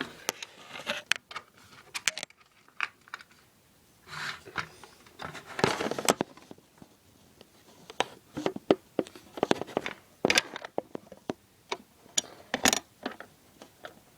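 Handling noise close to the microphone: a run of irregular clicks, knocks and rustles as the iPod that is recording is moved about and propped up on a makeshift stand.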